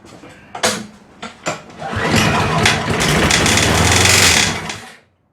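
MTD high-wheel lawn mower being started: a few sharp knocks, then the engine catches and runs for about three seconds with a really loud metal-on-metal grinding racket before it is shut off suddenly. The racket comes from the blade rubbing on the mower deck.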